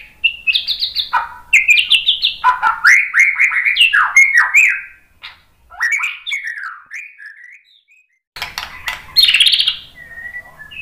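White-rumped shama singing a fast run of varied, gliding whistled phrases. It falls quiet for about a second roughly seven seconds in, then resumes with a loud burst of phrases mixed with harsh clicking notes.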